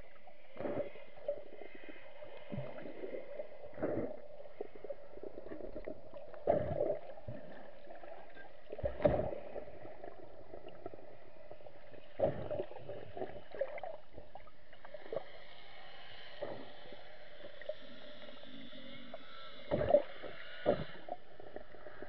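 Muffled underwater sound picked up through a camera's waterproof housing: a steady low hum with irregular knocks and thuds every second or few.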